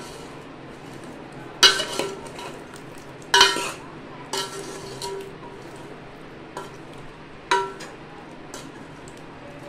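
Metal spoon stirring chunks of mutton and bottle gourd in a metal cooking pot, knocking against the pot's sides every second or two; each knock gives a sharp clink with a brief ring.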